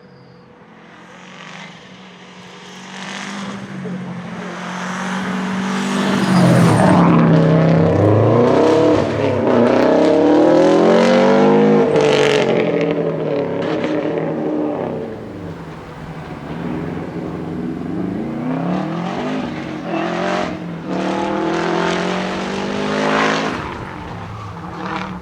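Subaru Impreza 555 Group A rally car's turbocharged flat-four boxer engine running hard past, its pitch rising and falling as it revs through the gears. It grows from faint to loudest about six seconds in, stays loud for several seconds, then drops back while still revving.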